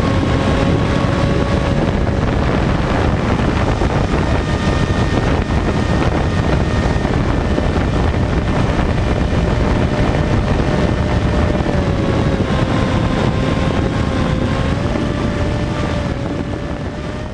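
Sky Surfer RC plane's electric motor and propeller running steadily in flight, heard from onboard, with heavy wind rushing over the microphone. The motor's tone wavers slightly in pitch, and everything fades out near the end.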